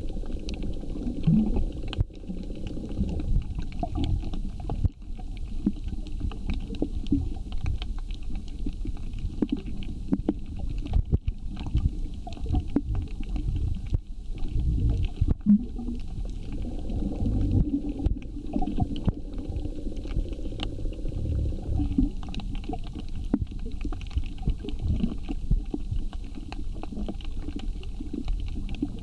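Underwater ambience picked up by a submerged camera: a steady low water rumble with many scattered sharp clicks and crackles.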